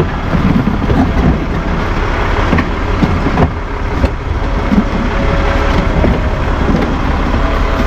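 Ram 4500 tow truck's engine idling with a steady low rumble, with a few light knocks as a heavy wooden order stand is shifted.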